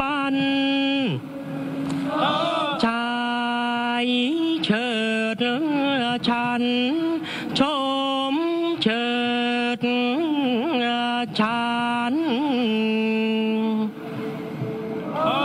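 A solo voice sings the Thai royal barge boat song (kap he ruea) in long, held, wavering notes that slide between pitches. Sharp clicks come every second or two. The line breaks off about fourteen seconds in, and a new phrase begins right at the end.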